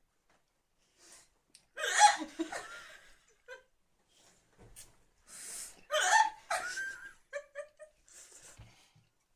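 A woman hiccuping, with two loud hiccups about two seconds in and again about six seconds in, each breaking into laughter; a short run of laughing follows the second.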